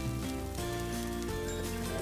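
Background music with held notes changing every half second or so, over the faint crackle of a dosa frying on a hot pan.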